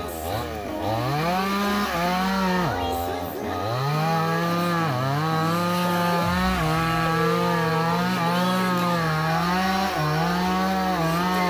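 A two-stroke chainsaw is revved up in two short bursts and then held at high revs, with brief dips in pitch.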